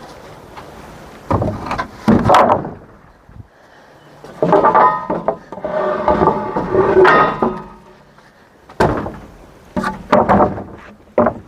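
Heavy rough-sawn lumber boards being handled and stacked: several wooden knocks and clunks as boards land on one another, with a longer stretch of board sliding and scraping against board in the middle.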